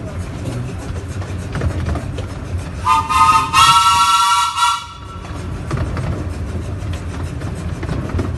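Steam whistle of a 15-inch-gauge steam locomotive blown for about two seconds, starting about three seconds in, sounding several notes at once. Under it the train runs on with a steady rumble and a faint regular beat.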